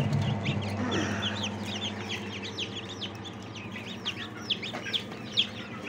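A crowd of newly hatched chicks peeping continuously, many short high falling peeps overlapping one another, over the steady low hum of the hatcher's fan.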